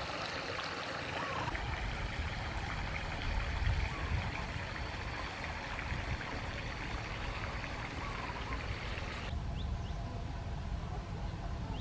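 Steady rush of a shallow stream, with a few short chirps over it. The water sound drops away suddenly near the end.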